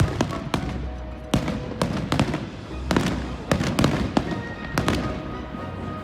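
Fireworks going off in a rapid, irregular string of sharp bangs, thinning out over the last second, with music playing underneath.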